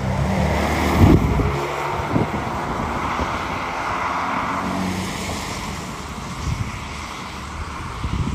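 Gusty storm wind rushing past and buffeting the microphone in low rumbles, with a heavier low thump about a second in.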